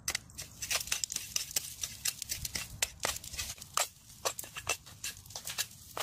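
A knife breaking open and scraping through a baked salt crust over crabs, the salt crunching in quick, irregular crackling clicks.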